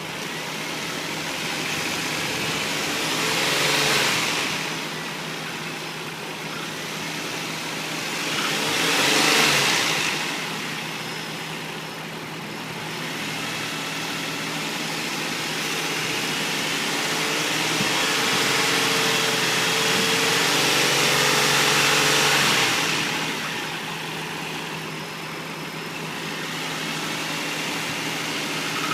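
2004 Infiniti I35's 3.5-litre V6 idling and being revved: two short blips and then a rev held for about five seconds, settling back to idle. The owner presents it as knocking.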